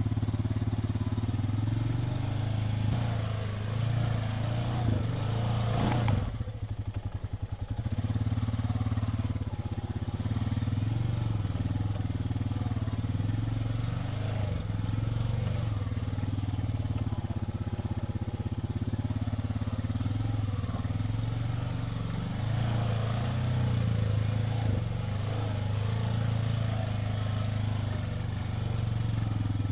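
Side-by-side utility vehicle's engine running steadily at low speed over a rough dirt trail, heard from inside the cab. A single knock comes about six seconds in, and the engine goes briefly quieter before picking up again.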